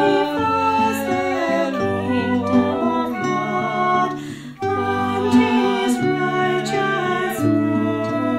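Slow, gentle music: a held, stepping melody over low sustained bass notes, with a brief pause about four and a half seconds in.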